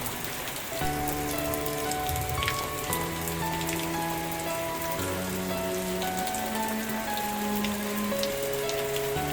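Steady rain falling, with scattered sharp drop taps. Soft background music of held chords runs beneath it, the chord changing every second or two.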